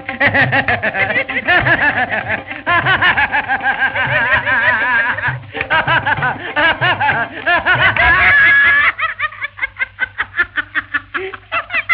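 A man laughing in a sung, melodic way: a 'musical laugh' of rhythmic ha-ha pulses whose pitch wavers up and down, a held laughing note about eight seconds in, then quick short chuckles. It comes from an old, narrow-band film soundtrack recording.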